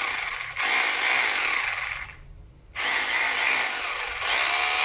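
Hangbo 920W rotary hammer drill running unloaded, with no bit in the chuck, in trigger bursts: its motor runs, cuts out about two seconds in, and starts again under a second later.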